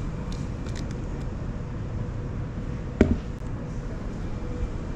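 Steady low background rumble of a shop interior, with one sharp knock about three seconds in.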